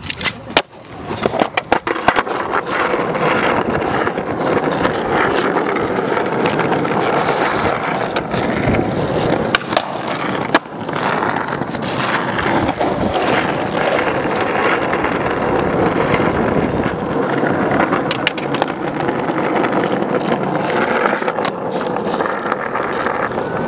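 Skateboard wheels rolling on rough asphalt, a loud, steady rolling noise. In the first couple of seconds, sharp clacks of the board hitting the ledge and ground cut through it. The rolling drops off briefly about ten seconds in, then resumes.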